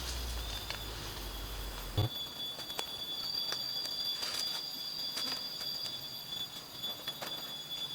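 Steady high-pitched insect drone of tropical forest, holding two or three even whining tones, with scattered light clicks. A low rumble underneath stops abruptly about two seconds in.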